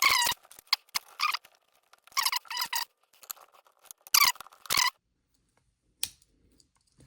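Short, high-pitched squeaks, about five of them in the first five seconds, from the plastic case and screws of an old laptop being pried and worked open, followed by a couple of faint clicks.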